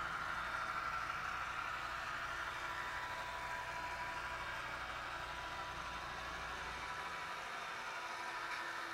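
HO-scale brass model of a Santa Fe SDFP45 diesel locomotive running on track. Its Soundtraxx sound decoder plays a steady diesel engine sound over the whir of the model's motor and wheels. The low rumble drops away about seven seconds in.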